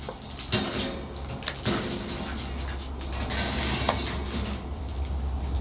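Tarot cards handled at a table: a deck shuffled in the hands and cards slid and laid down, giving a few short rustles.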